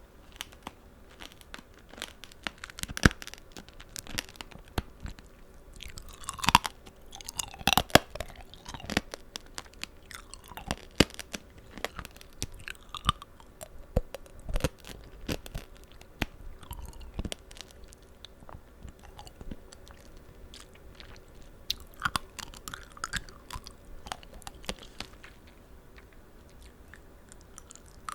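Close-miked chewing of tanghulu, candied strawberries and green grapes: sharp, irregular crunches of the hard sugar shell cracking, mixed with wet, juicy chewing of the fruit. The crunches thin out for a few seconds in the second half.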